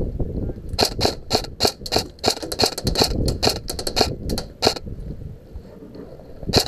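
Airsoft rifle firing a quick string of about twenty shots over roughly four seconds, sharp cracks at uneven spacing, with one more shot near the end.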